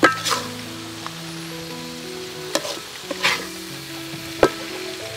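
Metal spatula scraping and clanking against a wok of stir-fried wasp nest larvae, several sharp strokes over a light sizzle.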